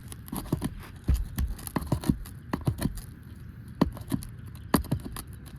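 Irregular clicks, taps and scrapes of hand work on an asphalt shingle roof as shingles are worked loose to get at their nails, with two sharper knocks near the end. The nails are pulling through the aged shingles rather than coming out clean.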